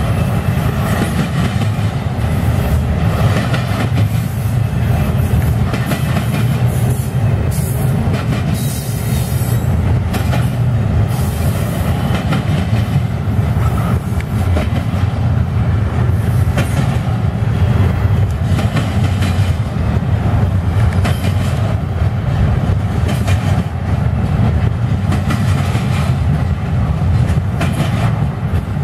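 Double-stack intermodal freight train's well cars rolling past close by: a steady heavy rumble with wheels clicking over rail joints, and a brief high hiss about nine seconds in.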